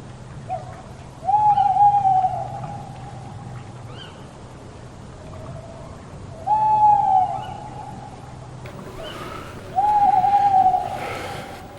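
Owl hooting: three long hoots a few seconds apart, each a single held note that dips slightly in pitch at its end, with a short soft note just before the first.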